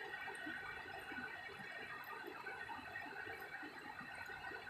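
Steady rain falling, an even dense patter of drops.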